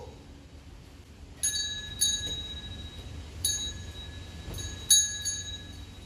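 Small metal bell struck about five times at uneven intervals, each strike sharp and leaving a clear, briefly ringing tone. The loudest strike comes near the end.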